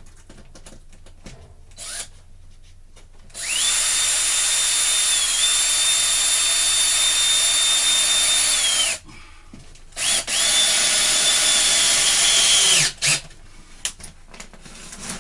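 Power drill driving self-drilling Torx-head screws into a wooden board: two long runs of steady motor whine, about five and three seconds, each winding up at the start and dropping away as the screw seats.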